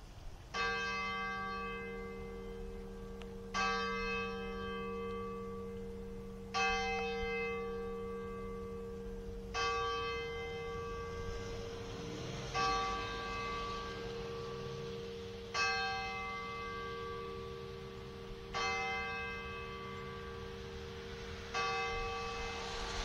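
A single cathedral tower bell tolling, struck eight times at an even pace of about one stroke every three seconds. Each stroke rings on, and a steady hum carries through to the next.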